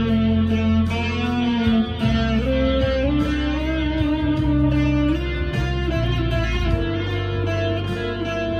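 Harley Benton SC Custom II electric guitar through an amp's crunch channel, playing a lead line of held single notes, some bent up and down in pitch.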